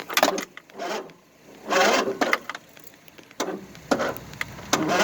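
A few irregular clicks and rustling handling noises in short bursts, with no engine turning over or running.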